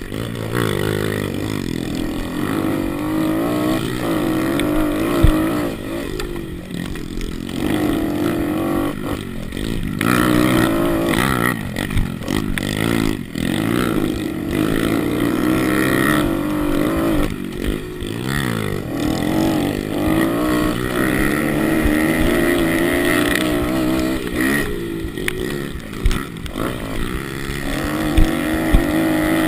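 Pit bike engine being ridden, revving up and down with the throttle, its pitch rising and falling over and over, with a few sharp knocks.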